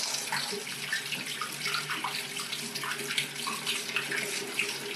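Hot water running from a kitchen mixer tap into a stainless steel sink, splashing steadily over a hand held in the stream to feel whether it has turned warm.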